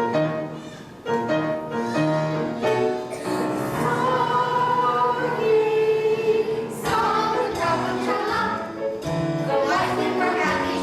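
Music: a choir singing with accompaniment, holding sustained notes.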